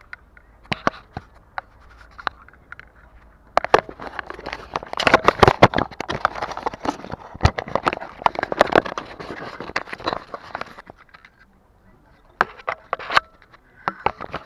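An action camera being handled right at its microphone: fingers scraping, rubbing and knocking on the camera and its mount as it is adjusted. The noise is dense for several seconds in the middle, with a few sharp clicks near the end.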